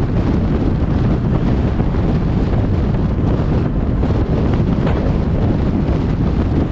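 Steady, loud wind buffeting on a GoPro's microphone as the car drives along, a dense low rumble with no engine tone standing out.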